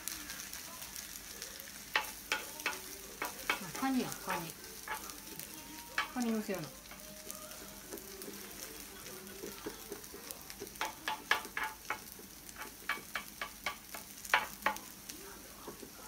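Two kittens wrestling on cloth pillows: rustling of fabric and quick scratching of claws, with clusters of sharp scratches about two to four seconds in and again from about eleven to fifteen seconds.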